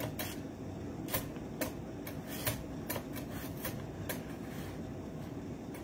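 Potato being sliced on a mandoline slicer: the potato is pushed back and forth over the blade, each pass giving a short, crisp slicing stroke, uneven but about every half second.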